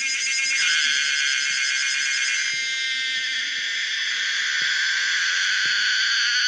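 Pomponia linearis cicada calling: a loud, continuous high-pitched buzz with a pulsing, tonal texture that changes character about half a second in and again about two and a half seconds in.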